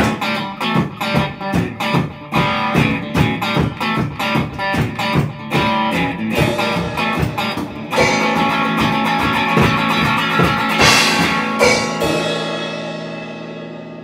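Psychedelic rock band recording: guitar strummed in a steady rhythm over drums, then a held final chord with a cymbal crash, and the song fading out over the last couple of seconds.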